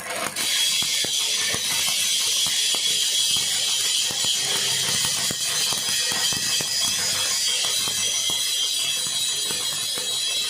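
Electric arc welding: the arc's steady crackling hiss, starting about half a second in and holding to near the end.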